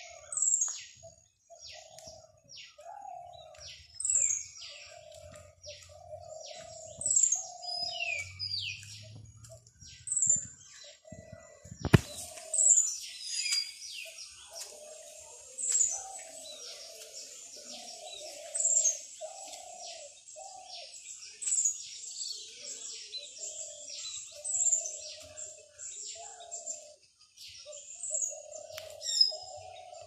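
Several birds singing and chirping together: a high, falling whistled note repeated about every second and a half over a dense chatter of short chirps, with a lower repeated call underneath. A single sharp click about halfway through, after which the chirping grows denser.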